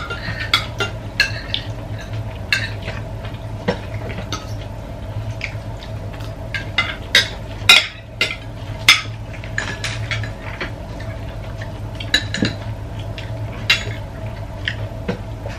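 Spoons and forks clinking and scraping against ceramic plates as several people eat: many irregular sharp clinks, over a steady low hum.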